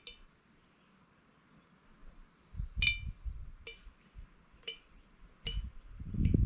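Metal fork clinking against the inside of a glass jar of pickled beets while fishing for a slice: a quick triple clink, then single ringing clinks about once a second. Low rumbling comes and goes underneath, loudest near the end.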